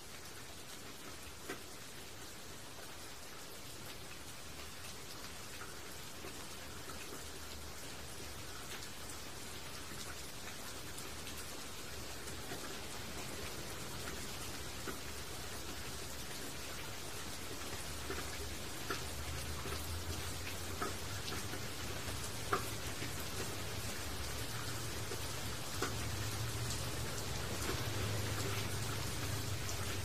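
Steady rain falling on broad leaves, with individual drops ticking sharply now and then. It grows gradually louder, and a low rumble joins it in the last third.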